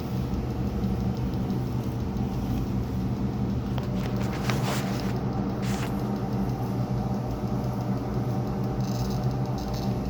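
A steady low hum made of several held tones, with a few brief clicks around the middle and again near the end.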